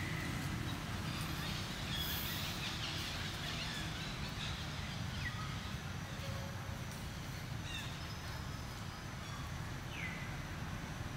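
Forest ambience: a steady low rumble with a few short, faint bird chirps that slide down in pitch, scattered through.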